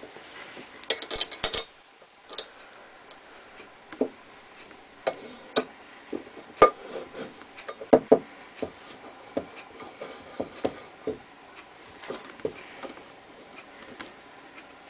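Lyman Universal case trimmer at work on a brass 30-30 case: the case being clamped in the chuck and the hand-turned cutter trimming its mouth, giving irregular small metallic clicks and ticks.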